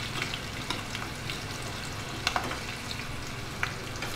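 Curry leaves, green chillies and mustard seeds sizzling in hot oil in a small tadka pan as they are stirred with a spoon for tempering. A steady frying hiss with scattered sharp crackles, a couple of them louder in the second half.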